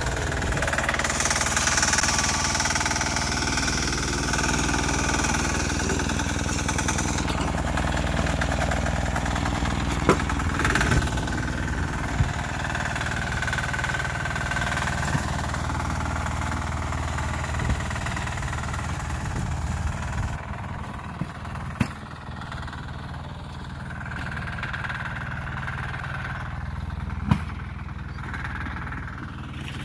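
Sears garden tractor's 6 hp single-cylinder diesel engine running steadily under load while plowing snow, with a few sharp knocks along the way. It grows somewhat fainter about two-thirds of the way through.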